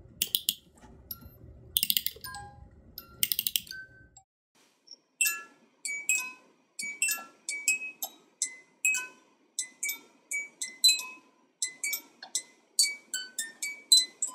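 Wind-up music box being wound by its key, a rapid clicking ratchet with a few stray notes, then about five seconds in its comb starts plucking out a tune, two to three bright ringing notes a second.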